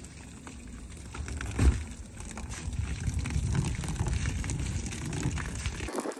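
Water from a hose pouring and splashing onto the backfill sand around a septic tank, wetting it so the sand settles and packs in. It runs as a steady rush with a brief louder burst about two seconds in, and it cuts off abruptly near the end.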